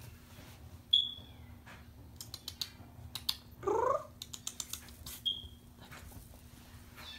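Kitten playing with a wand toy: clicks, crinkles and rustling of the toy and paws on the bedding, with a brief rising mew just before the four-second mark. Two short high chirps, about a second in and again near five seconds, are the loudest sounds.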